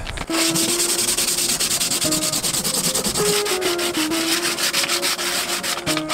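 Fiberglass boat hull being sanded by hand with a sanding sponge: a steady abrasive hiss in quick back-and-forth strokes, which pauses briefly near the end. The old flaking top coat is being roughened so that new paint will adhere.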